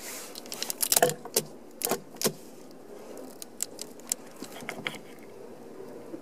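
Hard plastic bottle crinkling and clicking as it is handled and pushed into a vehicle's fuel filler opening: a cluster of sharp clicks and crackles about one to two and a half seconds in, then scattered lighter ticks.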